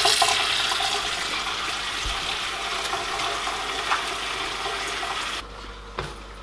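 Kitchen tap running, its stream splashing over a fish fillet into a stainless steel sink; the water stops suddenly about five seconds in, followed by a single light knock.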